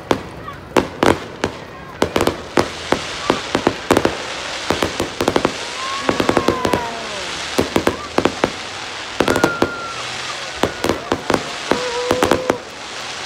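Aerial fireworks display: shells bursting in rapid, irregular bangs, over a dense crackle from the bursting stars. The bangs ease off near the end.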